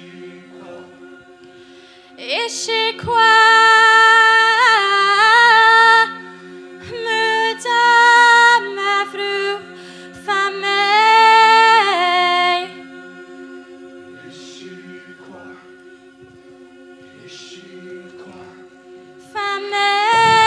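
Show choir singing a cappella: a steady low choral hum is held throughout, and a high female solo voice sings long held and bending notes over it in three stretches in the first half, then comes in again near the end.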